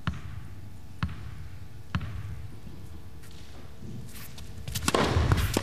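Tennis ball bounced on the indoor court, three bounces about a second apart. Near the end, louder noise with many sharp clicks rises.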